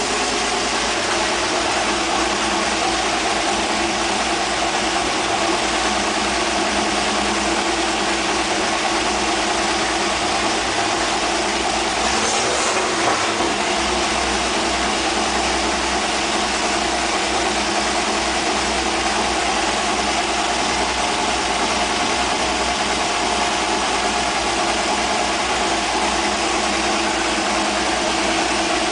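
An engine idling steadily, running at an even speed throughout.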